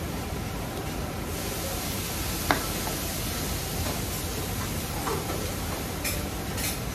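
Steady hiss of eatery background noise, with one sharp clink of tableware about two and a half seconds in and a few lighter taps near the end.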